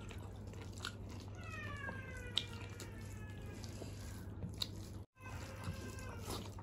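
Quiet eating-by-hand sounds: soft chewing and a few short wet clicks as fingers mix rice and curry on steel plates, over a steady low hum. The sound drops out completely for a moment about five seconds in.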